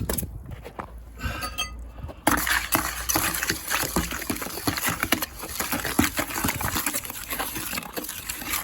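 Wet sand-and-cement mortar being mixed by hand: a wet, gritty scraping and sloshing with many small clicks, getting louder and busier about two seconds in. The mix has come out a bit runny.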